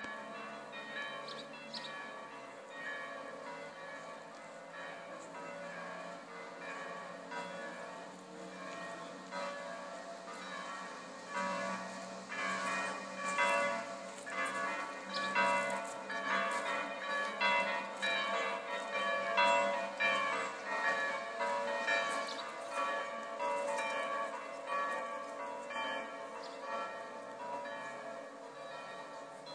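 Church bells pealing, many strokes ringing over one another, growing louder and busier about eleven seconds in.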